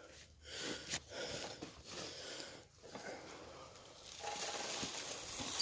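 Pedal car rolling slowly over dry leaf litter: a soft crunching rustle under the tyres, getting louder about four seconds in.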